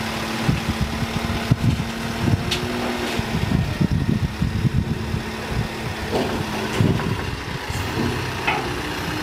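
Manitou telehandler's diesel engine running at a steady idle hum while the loader bucket is lowered and positioned, with irregular knocks and thumps over it.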